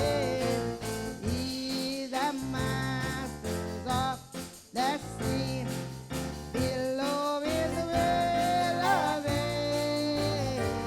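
Gospel worship music: a singer holding long, sliding notes over steady instrumental chords.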